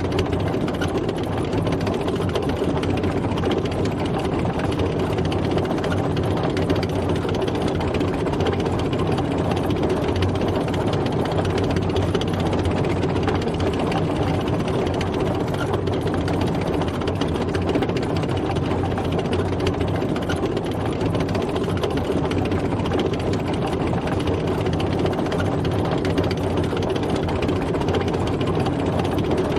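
Tank driving at a steady pace: its engine runs under a continuous fast mechanical rattle from the tracks, with no let-up.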